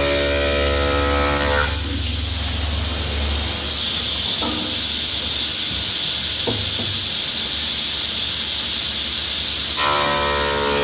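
A woodworking power tool's motor running with a steady whine, then a broad rushing noise from about two seconds in as it cuts through wood, with a couple of light clicks. Near the end the cut finishes and the motor whines on unloaded.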